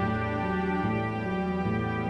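Slow, sad-sounding music: sustained chords over a low note that changes about every 0.8 seconds.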